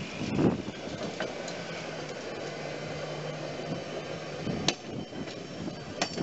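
Hi-rail pickup utility truck running along the rails on its guide wheels, with a steady engine hum and three sharp clicks. A brief gust of wind on the microphone comes right at the start.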